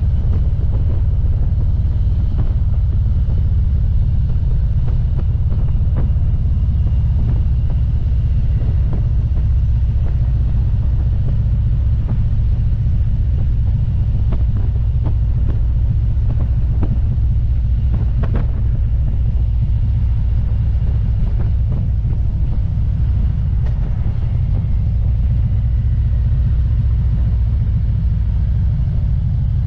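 Touring motorcycle cruising at steady road speed: a constant low engine and road rumble mixed with wind buffeting the microphone.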